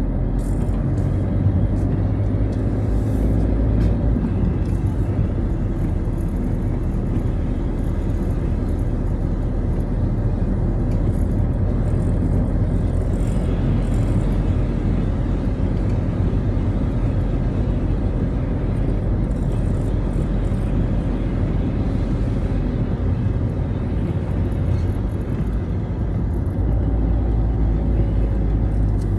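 Citroën Xsara driving on a wet road: steady engine drone and tyre and road noise, with no distinct events.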